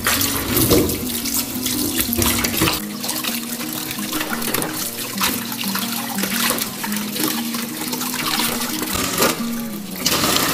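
Kitchen tap running into a steel bowl in a stainless-steel sink, water splashing as raw chicken pieces are rinsed and rubbed by hand.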